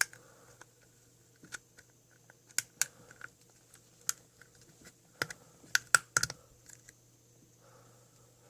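Scattered light clicks and taps at irregular intervals, several coming in quick clusters, as small plastic craft pieces are handled and pressed together on a work surface.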